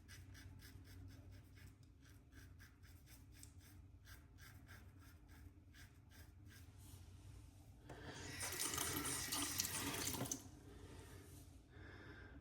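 Leaf Thorn razor scraping through lathered stubble in quick, quiet strokes. About eight seconds in, a tap runs for two to three seconds, then stops.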